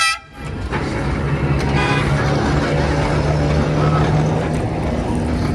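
Bolton 66 heritage tram running past with a steady low hum and rumble. A short pitched toot at the very start is cut off abruptly.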